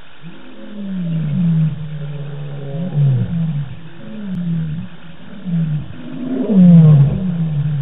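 Lion roaring: a run of deep calls, each falling in pitch, coming about once a second and loudest a little before the end.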